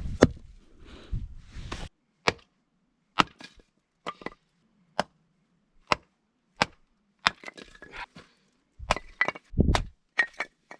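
Log being chopped and split into pieces for a Swedish stove: about a dozen sharp wooden knocks, roughly one a second, some in quick pairs.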